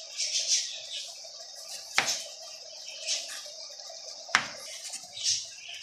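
Kitchen knife cutting through an onion on a cutting board: repeated crisp slicing sounds, with two sharp knocks of the blade on the board, one about two seconds in and one a little past four seconds in.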